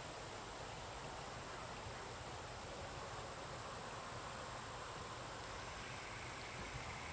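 Faint, steady outdoor background: an even hiss with a thin, continuous high-pitched tone.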